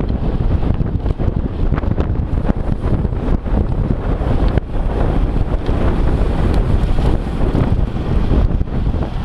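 Wind buffeting a moving camera's microphone: a steady loud rumble with scattered faint clicks.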